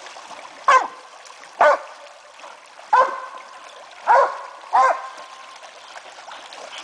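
A dog barking five times, short barks at uneven gaps of about a second, over the faint trickle of a shallow creek.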